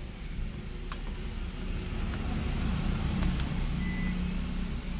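Steady low engine-like rumble in the background, a little louder in the second half, with a sharp snip about a second in as flush side cutters clip a diode lead on a circuit board.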